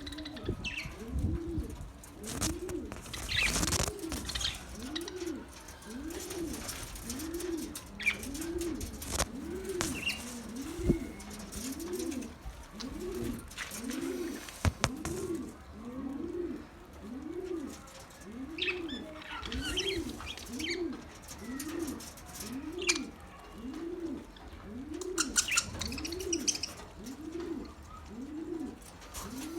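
A dove or pigeon cooing steadily, each low coo rising and falling in pitch, repeated about once a second. Higher chirps from small birds break in now and then.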